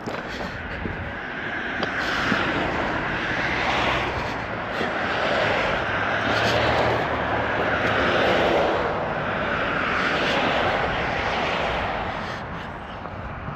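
A passing engine that grows louder to a peak about eight seconds in, then fades away.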